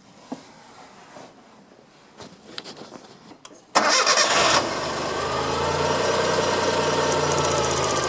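A few faint clicks, then almost four seconds in a Suzuki Cappuccino's small turbocharged three-cylinder engine starts with a short loud burst and settles into a steady idle.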